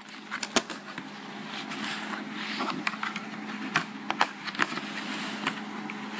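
Plastic Blu-ray case and cardboard slipcover being handled, with scattered clicks and rustles throughout, over a steady low hum.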